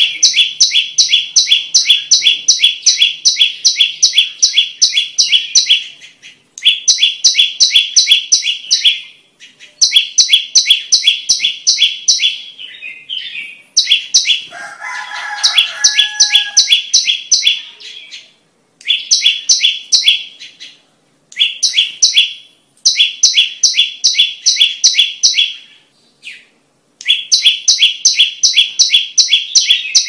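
Prenjak lumut, a small warbler, singing loud, rapid runs of sharp, evenly repeated high chirps, each run lasting a few seconds with short pauses between. About halfway through, a brief lower call sounds under the song.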